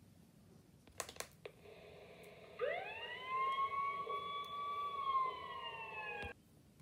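Two sharp clicks, then a siren-like tone that swoops up in pitch, holds for about three seconds, sags slightly and cuts off suddenly.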